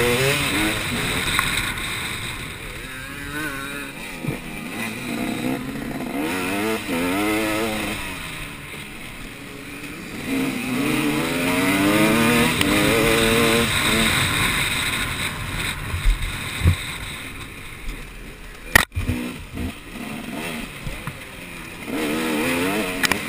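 Off-road motorcycle engines revving and shifting, their pitch climbing and falling again and again as they pass, with one sharp knock about three quarters of the way through.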